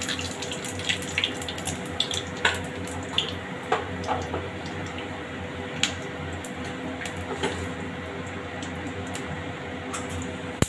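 Whole spices (cumin seeds, a bay leaf and a dried red chilli) sizzling and crackling in hot oil in a kadai, the tempering stage of an Indian curry. The pops come thick at first and thin out over the seconds.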